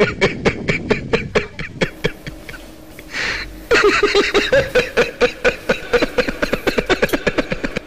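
Rapid cackling laughter made of short staccato 'ha' sounds, about seven a second. It breaks off for a moment about two seconds in, then resumes.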